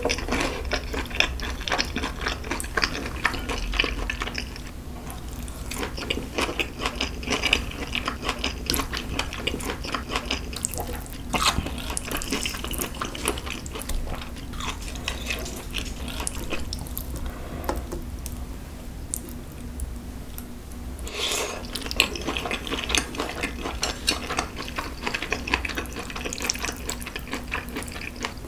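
Close-miked eating: wet chewing and mouth smacks on fried chicken and spicy stir-fried noodles, with a few louder slurps of noodles.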